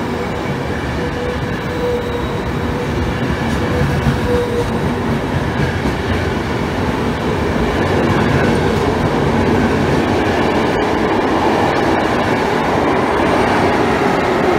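Frecciabianca intercity train pulling out of the station, its coaches rolling past close by with a steady rumble of wheels on rail. A faint steady whine fades out in the first few seconds, and the sound grows a little louder about halfway through as the train gathers speed toward the rear E414 electric locomotive.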